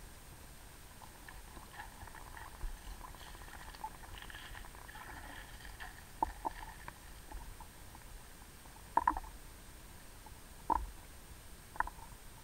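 Underwater creek sound picked up by a submerged camera: faint crackling and ticking at first, then several sharp clicks in the second half over a low rumble.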